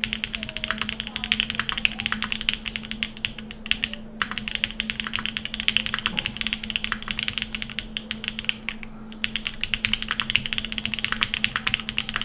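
Fast typing on a Gok 7V custom mechanical keyboard with a polycarbonate plate and Krytox-lubed Jade Black switches: a dense, continuous run of keystrokes with brief pauses about four and nine seconds in.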